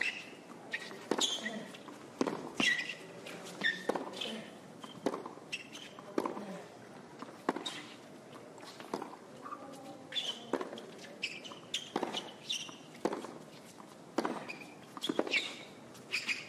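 Tennis rally on a hard court: the ball is struck by rackets and bounces in a steady back-and-forth, a sharp knock roughly every second, with shoes squeaking on the court between shots.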